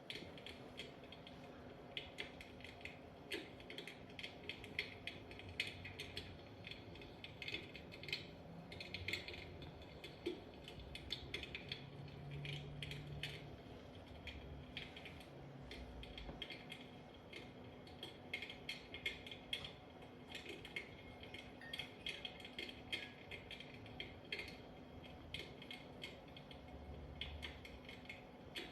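RealFlame Saphir electric fireplace running: a faint, steady hum under irregular light clicks, several a second.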